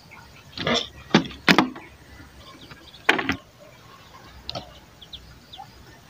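Handling noise from a large clear plastic bottle: a few sharp crinkles and knocks, clustered about a second in and again around three seconds in, with fainter ones after.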